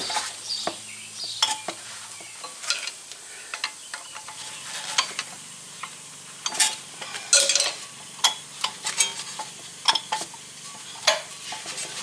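Metal clicks, clinks and scrapes from hands and a screwdriver working on a Ford Focus front disc-brake caliper, its bracket and pads. They come irregularly, busiest a little past the middle.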